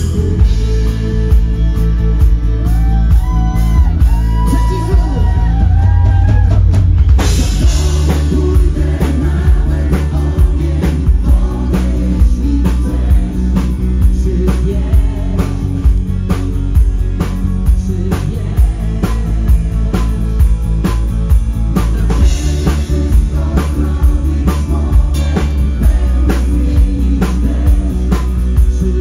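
Live rock band playing through a PA: drum kit, bass, guitar and a Nord keyboard. A sung line comes in the first several seconds, a cymbal crash lands about seven seconds in, and then the drums keep a steady beat.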